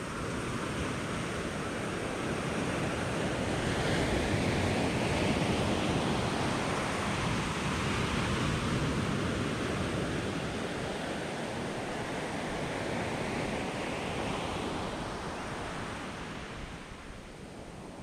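Surf breaking and washing up a shallow sandy beach, a steady rush of foam that swells in the middle and eases off near the end.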